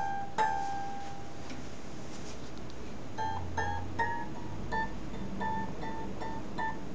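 Tensioned scroll saw blade plucked with a finger, giving a twang like a guitar string whose pitch shows how tight the blade is tensioned. Two plucks ring out for about a second at the start, then from about three seconds in it is plucked again and again, two or three times a second.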